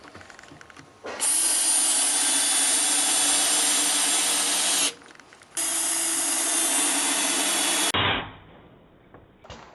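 A handheld power tool running steadily at full speed, with a high motor whine, in two runs of about four and three seconds, each cut off abruptly.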